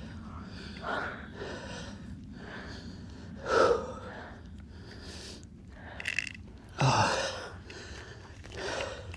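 Heavy breathing of a hiker labouring up a steep hill: out of breath, a loud breath every second or two, the loudest about three and a half and seven seconds in.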